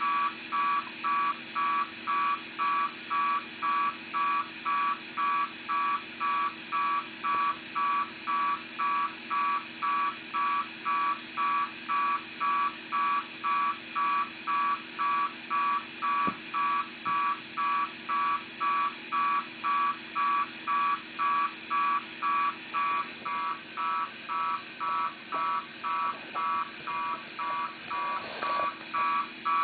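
Unidentified signal received on the 2-metre amateur radio band, heard through the receiver as a rapid run of identical electronic beeps, about two a second, over a steady low hum. The uploader is unsure whether it is a data transmission.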